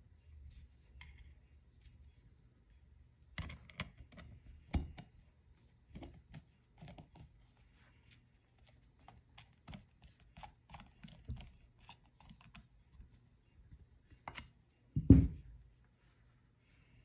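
Small metallic clicks and taps of a screwdriver and small parts against a Yamaha Grizzly 660 ATV carburetor body as it is handled during reassembly, with one heavier thump about fifteen seconds in.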